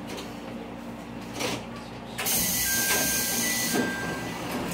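A burst of compressed air hissing out for over a second, about two seconds in, from the pneumatic system of an MRT300 diesel railcar standing at a station. Behind it the railcar's diesel engine idles with a low steady hum, and a couple of sharp clicks come before the hiss.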